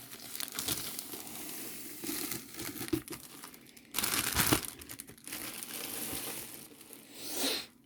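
Packaging crinkling and rustling as a diamond painting kit is unpacked by hand, irregular throughout, with a louder burst of crinkling about four seconds in.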